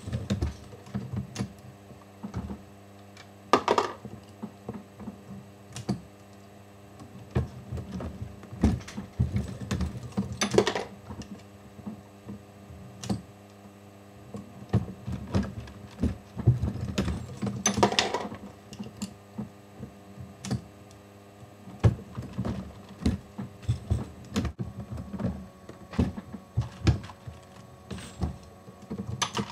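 Hornady Lock-N-Load AP progressive reloading press worked by hand, loading .40 S&W rounds: a run of metallic clicks and clunks from the handle strokes and the indexing shellplate, with a brighter ringing clink about every seven seconds. A steady low hum runs underneath.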